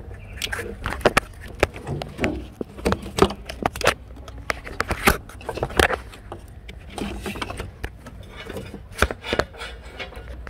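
Hands working hoses and parts in a car engine bay: irregular clicks, knocks and scrapes as parts are gripped and moved, over a steady low hum.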